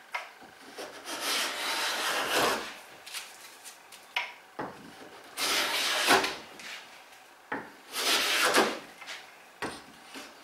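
Low angle jack plane (Quangsheng No.62) cutting along a wooden board in three long rasping strokes, with short knocks between strokes as the plane is set back down. The plane is taking a fairly thick shaving.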